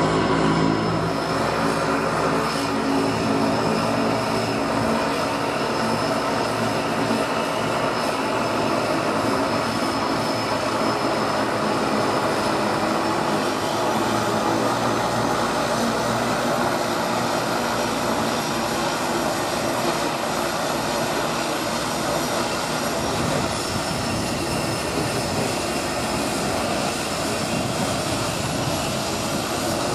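Seaplane propeller engine running steadily on the water, a continuous drone with a faint high whine over it.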